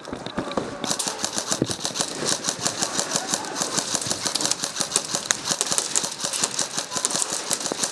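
Rapid, steady mechanical clicking, about seven or eight clicks a second, starting about a second in and running on evenly.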